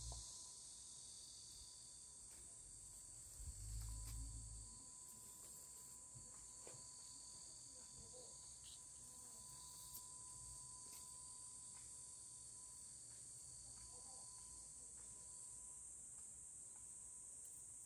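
A steady, high-pitched chorus of summer insects, with a lower strand of the chorus dropping out near the end. A brief low rumble comes about three and a half seconds in, and there are faint ticks from trimming green onion stalks by hand.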